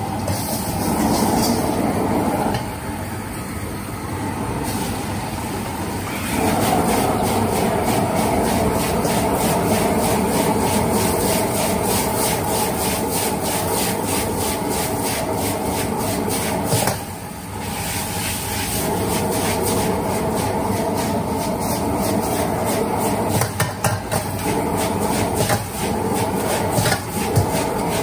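Rice noodles being stir-fried in a wok over a high-flame gas burner: a steady burner rush and sizzle, with a steel ladle repeatedly scraping and knocking against the wok as the noodles are tossed. The sound dips briefly about two-thirds of the way through.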